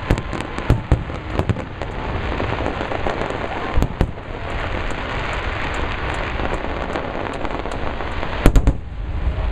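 Aerial fireworks shells bursting: a quick run of bangs at first, two loud booms about four seconds in, then a stretch of steady crackle, and the two loudest bangs near the end.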